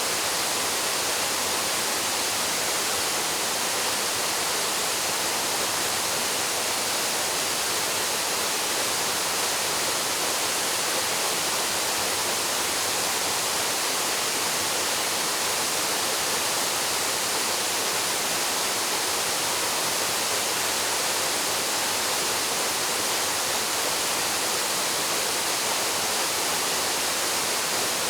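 Waterfall pouring steadily into a plunge pool, an even rushing hiss with no change in level.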